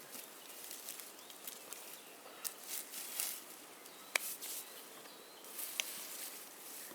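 Faint rustling and scuffing handling noises, with a sharp click about four seconds in and another near six seconds.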